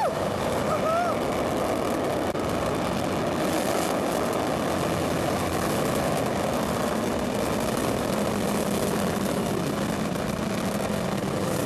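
Soyuz rocket's engines at liftoff: a steady, loud, rumbling roar of rocket exhaust that holds unbroken throughout.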